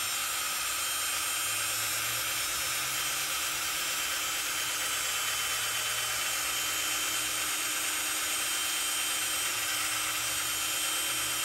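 Handheld electric drill running steadily at one even speed, a small pilot bit boring into the broken 8 mm exhaust stud at the exhaust port of a VW 1600 dual-port engine.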